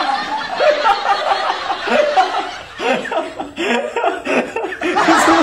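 Hearty laughter: a man laughing in a long run of chuckles, with a short lull partway through.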